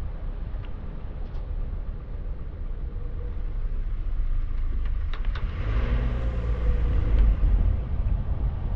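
Car driving on a wet road, heard through a car-mounted action camera: wind buffeting the microphone over a low rumble of tyres and engine. It swells louder in the second half, with a few faint ticks about five seconds in.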